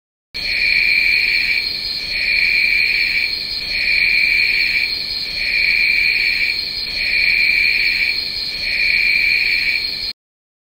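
Night-time cricket chorus sound effect: a steady high trill with a lower chirping pulse that swells six times, about every one and a half seconds. It starts and cuts off abruptly.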